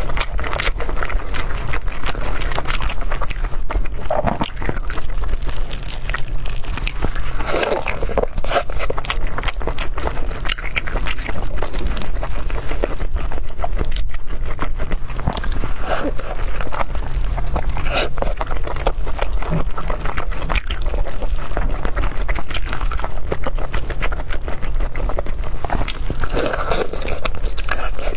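Close-miked eating: wet smacking bites and chewing of a soft, sauce-coated chunk of braised meat, in many quick clicks and smacks, over a steady low hum.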